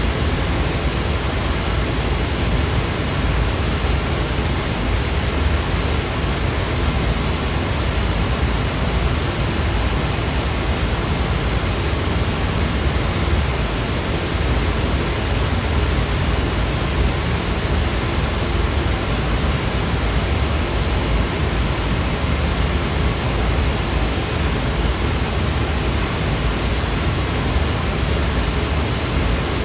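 Steady, unchanging white-noise sound effect: an even hiss with more weight toward the low end.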